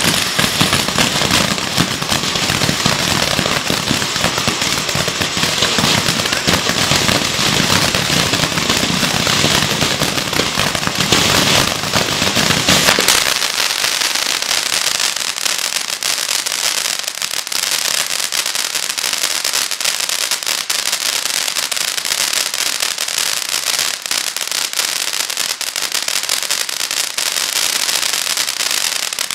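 Svea 'San Francisco' 15-stage ground fountain firework burning: a continuous hiss of spraying sparks with dense crackling. About 13 seconds in, the deeper part of the sound drops out as the fountain changes stage, and it goes on as a higher hiss and crackle.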